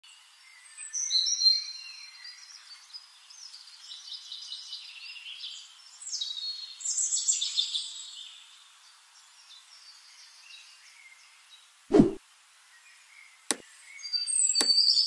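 Birds chirping in quick, high-pitched phrases, thin and with no low end. Near the end come a thump and two sharp clicks.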